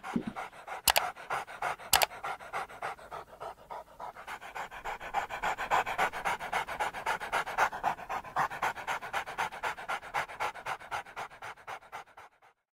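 A dog panting quickly in an even rhythm, with two sharp clicks about one and two seconds in; the panting stops shortly before the end.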